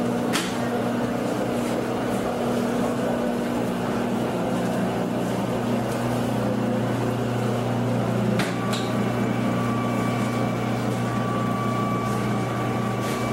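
Electric pasta sheeting machine running, its motor giving a steady low hum as dough is fed through the rollers. A higher steady whine joins about two-thirds of the way in.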